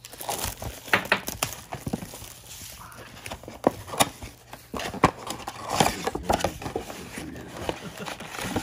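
Trading cards being handled at a table: irregular light taps and clicks of card stock being stacked and shuffled, with faint rustling.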